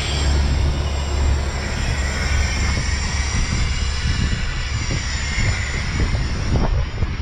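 Compressed air hissing steadily out of the rig's air-ride bags as they are dumped to lower it, starting suddenly and easing off near the end. Under it, the truck's diesel engine idles with a low steady rumble.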